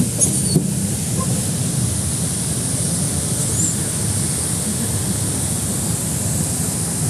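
Steady outdoor rushing noise with a low rumble, with a few light taps in the first second.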